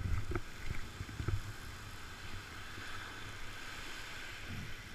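Wind buffeting the microphone over a steady wash of surf, with a few low thumps in the first second and a half.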